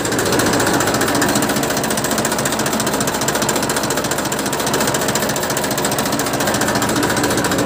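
1998 Massey Ferguson 1035 DI tractor's three-cylinder diesel engine running steadily, heard close up with a rapid, even diesel clatter. The seller calls it a fine sound, a sign of a healthy engine.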